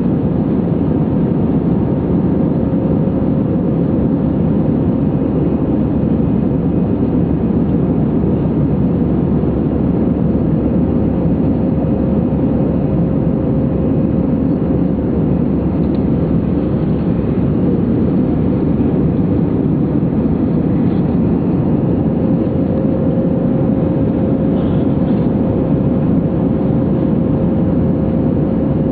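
Airbus A319 in its climb after take-off, heard from inside the cabin: steady engine and airflow noise, a low even rush with a faint steady tone running through it.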